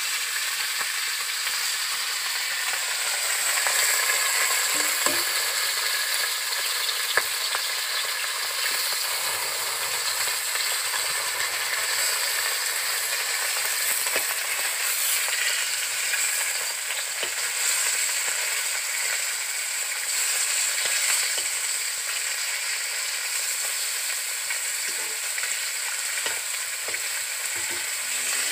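Salted, turmeric-coloured pieces of rohu fish frying in hot oil in a metal karahi, with a steady sizzle. A metal spatula turning the pieces gives a few sharp clicks and scrapes against the pan.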